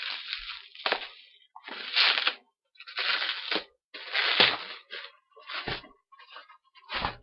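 Bubble wrap crinkling and crackling as an item is unwrapped by hand, in about eight short, separate bursts.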